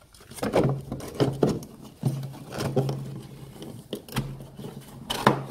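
Handling noise close to the microphone: a nylon jacket sleeve and hand rustling and scraping, with a few light knocks, as the arm reaches over the kayak seat.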